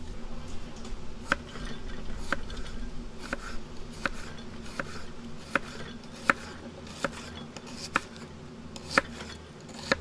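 Kitchen knife slicing a red onion on a wooden cutting board: a sharp knock of the blade on the board about every three-quarters of a second, some ten strokes in all, over a steady low background noise.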